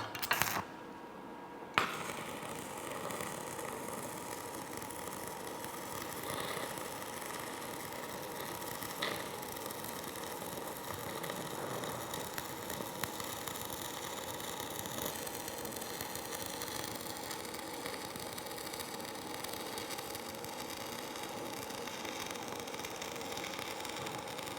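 Stick (shielded metal arc) welding arc struck with a sharp click about two seconds in, then burning with a steady crackle while a root pass is run on a groove joint in the flat position with a small electrode.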